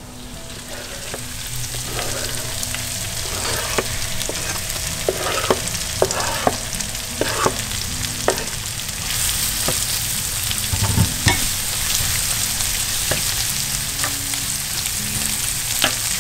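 Chopped lobster sizzling in a frying pan of butter, garlic and onion, with utensils clicking and scraping as the pieces are pushed off a cutting board and stirred. The sizzle grows louder about nine seconds in as the lobster goes into the pan.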